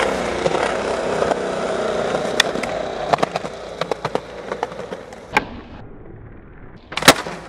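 Skateboard wheels rolling on concrete, then a run of small clicks, a sharp pop of the tail about five and a half seconds in, a second of near quiet while the board is in the air, and a loud landing smack just before the end.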